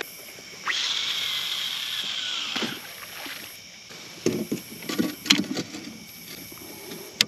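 Fishing reel's spool whirring as baited line pays out on a cast, its pitch falling as the spool slows and stops about two and a half seconds in. This is followed by a cluster of knocks and clicks as the rod butt is set into the kayak's plastic flush-mount rod holder.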